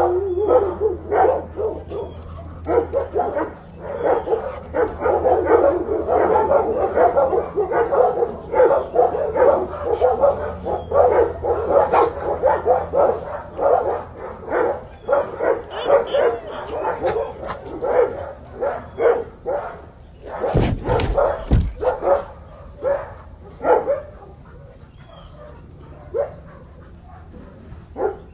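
Dogs barking and yipping in a rapid, nearly continuous stream, thinning to occasional barks near the end. Two dull thumps come about three-quarters of the way through.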